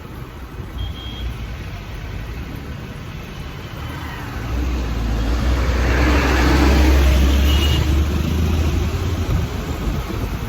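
A road vehicle running, getting louder about four and a half seconds in and peaking around seven seconds, with a heavy low rumble like wind on the microphone.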